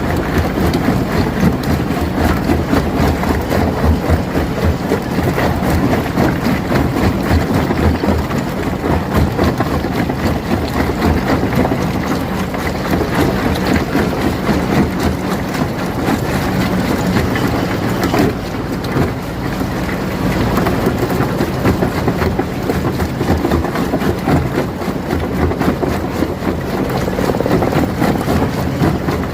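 Stone crusher running under load, its motor droning steadily beneath a dense, irregular clatter of rock being broken and tumbling through the machine.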